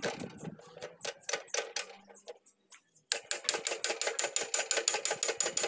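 Metal ratchet clicking during work on a kuliglig hand tractor's gearbox: a few irregular clicks, then, about three seconds in, a fast even run of about ten clicks a second that stops near the end.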